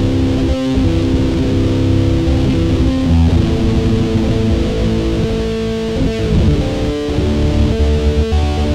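Solid-body electric guitar played through an amplifier: chords picked and strummed and left to ring, changing about once a second.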